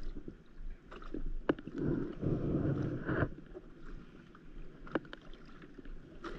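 Small waves lapping and slapping against an inflatable stand-up paddleboard, with a few sharp knocks. About two to three seconds in comes a louder stretch of rubbing and scraping as the fishing rod is handled.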